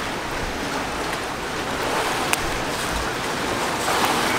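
Steady wash of sea waves with some wind, an even constant noise, with one faint click about two seconds in.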